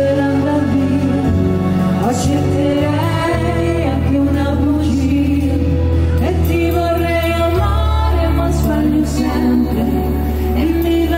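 Women singing an Italian pop ballad with a live band of keyboards, electric guitars, bass guitar and drums.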